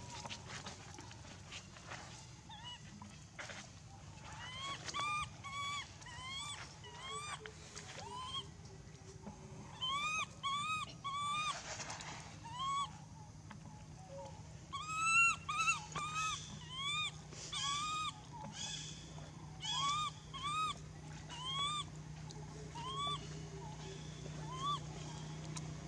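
Baby long-tailed macaque crying in distress as an adult holds it by the tail. It gives short, high, arched cries, each rising then falling, starting a few seconds in and coming in quick runs of several calls with brief pauses between.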